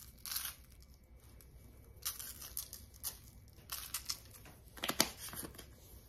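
Lemon pepper seasoning shaken from a shaker jar onto raw chicken breasts in a parchment-lined air fryer basket: a series of short, scratchy rattling shakes, the strongest ones about five seconds in.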